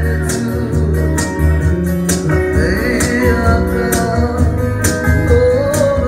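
Live band music: electric guitars playing over a steady bass and a sharp percussive beat, with a voice into a close-held microphone.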